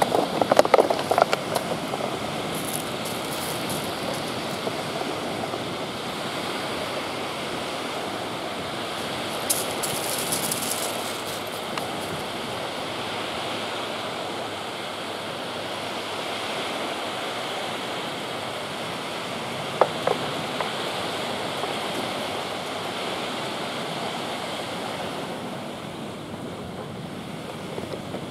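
Steady wash of small waves lapping on a shingle beach, with some wind. A few brief knocks stand out near the start and about twenty seconds in.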